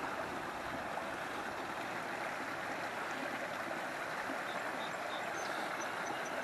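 Small rocky creek running over a little cascade: a steady rush of water.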